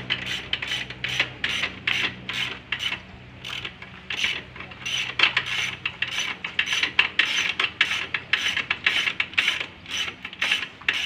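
Socket ratchet wrench clicking in a quick steady run, about three clicks a second, as its handle swings back and forth on a bolt at the bottom of a Honda CRF150 engine that is being taken out of the frame.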